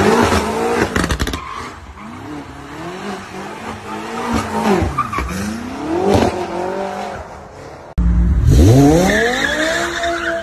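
A BMW F90 M5's twin-turbo V8 revved and blipped several times, its pitch rising and falling, as the car pulls away. After a sudden cut about eight seconds in, an E60 M5's V10 revs sharply up and holds high while its rear tyres squeal in a slide.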